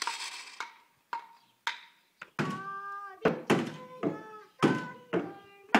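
Hand percussion played in an improvised, uneven rhythm: about a dozen separate strikes, each ringing briefly with a few pitched tones.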